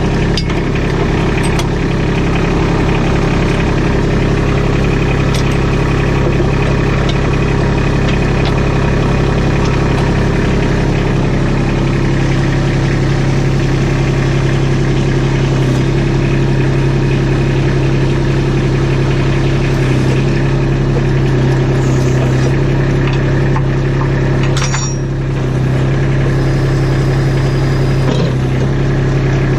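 Kubota B2601 tractor's three-cylinder diesel engine running steadily with the backhoe freshly re-attached, dipping briefly in level about 25 seconds in.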